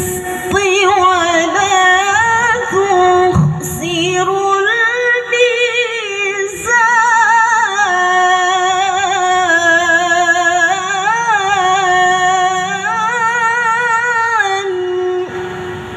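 A young woman reciting the Qur'an in melodic tilawah style into a handheld microphone, holding long ornamented notes with a fast waver that climb and fall in steps. The phrase ends a little before the end, leaving low room noise.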